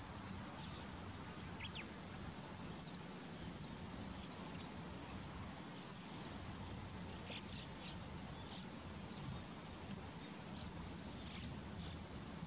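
Wild birds giving short, high chirps here and there, a few in quick clusters, over a steady low background hum.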